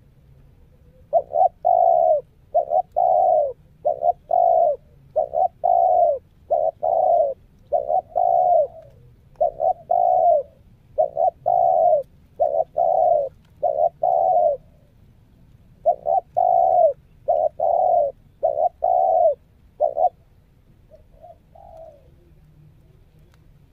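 Spotted dove cooing over and over in runs of short coos: a trained decoy bird calling. The coos stop about 20 seconds in, and a couple of faint notes follow.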